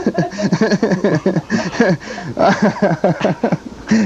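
Two men laughing hard together: quick runs of chuckles, over and over without a pause.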